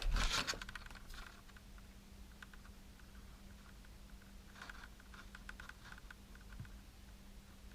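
Light plastic clicks and rustles from a fishing lure and its packaging being handled: a short crinkle right at the start, then scattered small ticks that bunch up for a couple of seconds near the end, over a faint steady hum.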